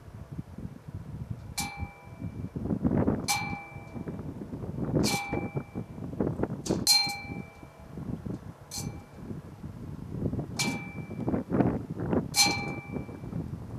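A hanging metal chain swinging against a rusty steel post, striking it with a ringing clang seven times at an even pace of roughly one every two seconds.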